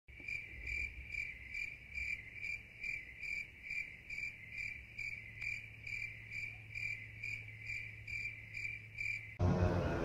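Cricket chirping in a steady, even rhythm, about two high-pitched chirps a second, over a faint low hum. Just before the end it cuts abruptly to louder music.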